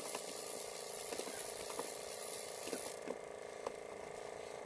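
Steady hiss of wind and water, which drops away suddenly about three seconds in, over a faint steady hum, with a few light clicks.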